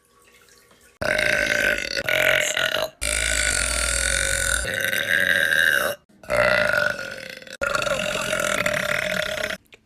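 A girl burping loudly: a run of about five long burps, each cut off abruptly by an edit, the longest lasting about three seconds.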